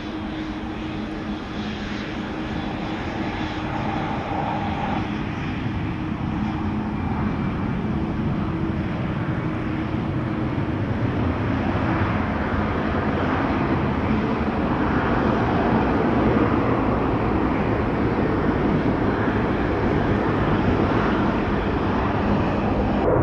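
KLM Boeing 777's twin GE90 turbofan engines running as the airliner rolls along the runway, a steady jet roar that grows louder over the whole stretch.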